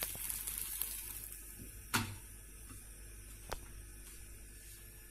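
Crêpe frying in a hot pan, a faint sizzle that fades as it is lifted out with a spatula. A sharp clack about two seconds in and a lighter click about a second and a half later.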